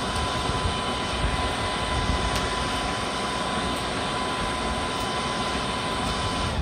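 Hairdryer used as the blower of a charcoal forge, running steadily: a thin whine over an even rush of air forced up through the burning charcoal.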